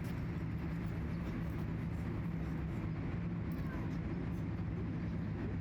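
Steady low rumble and hum of distant traffic, with a constant low tone under it.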